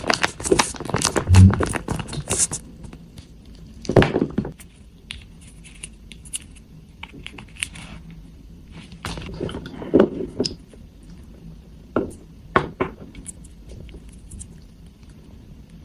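Hands opening a toy kit's plastic packaging: crinkling and tearing for the first couple of seconds, then a few scattered knocks and scrapes of hard plastic toy parts.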